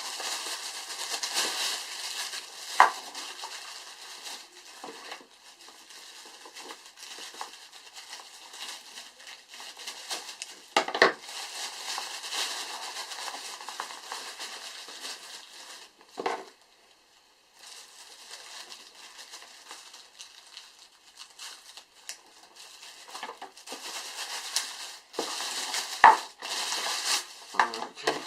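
Cardboard and plastic packaging being handled while a radio is unpacked from its box: continuous rustling and crinkling, with a few sharp knocks and taps scattered through it.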